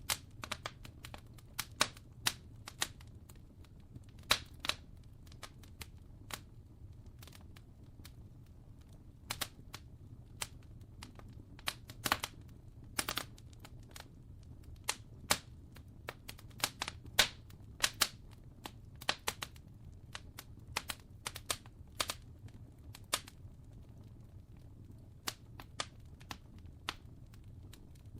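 Wood fire crackling: irregular sharp pops and snaps of varying loudness, over a faint steady low hum.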